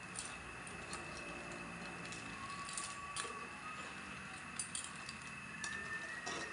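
Faint, scattered clinks of clam shells and a utensil in a pot of just-cooked tulya, over a steady background hiss.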